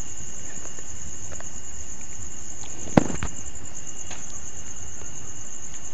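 Steady background hiss with a high-pitched whine running through it, and a single sharp click about three seconds in.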